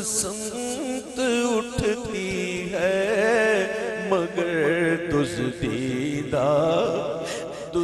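Male naat reciter singing a long, wordless, melismatic Urdu naat line in an emotional, tearful voice, the held notes wavering with heavy vibrato and gliding up and down.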